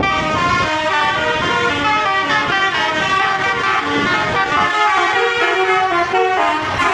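Bus telolet horns playing a quick tune, several horn tones sounding together and stepping from note to note every fraction of a second.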